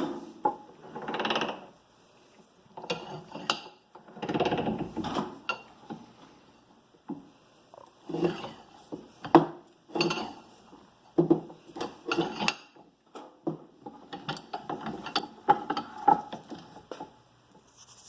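6-inch Reed bench vise worked by hand, its swivel base being rotated: bursts of metal grinding, then many short rattling clicks.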